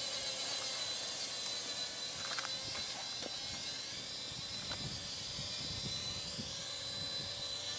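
Blade Nano QX micro quadcopter's four tiny motors and propellers whining steadily in flight. Wind rumbles on the microphone underneath.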